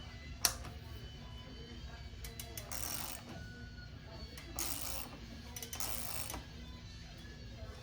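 Metal hand tools working a bicycle crank: a sharp metallic click about half a second in, then three short scraping rasps, as a crank extractor is turned with an Allen wrench to pull the crank arm off the bottom bracket spindle.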